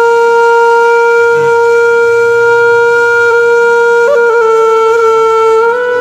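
Music: a wind instrument holds one long, loud, steady note, with a brief ornament about four seconds in and a slight step up in pitch near the end.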